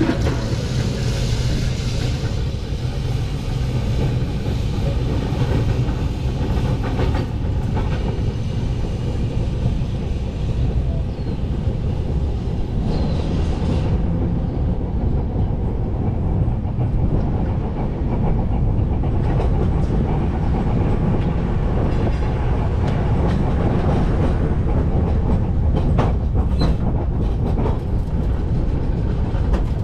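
1925 W2-class electric tram running along the track: a steady low rumble of wheels on rails, with occasional clicks.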